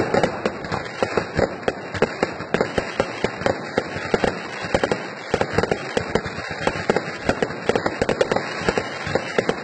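Fireworks display: aerial shells bursting in rapid, uneven succession, several bangs and crackles a second.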